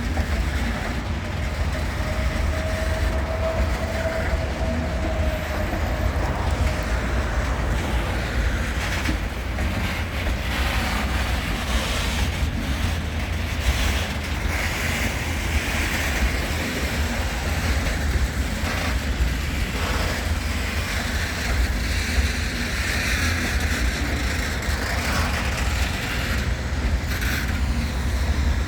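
HŽ series 2041 diesel locomotive and its train of open freight wagons running: a steady low rumble with scattered knocks. A thin whine rises and falls briefly a few seconds in.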